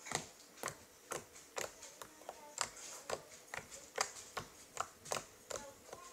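Fingers pressing and poking a ball of homemade slime, giving a run of sharp pops about twice a second.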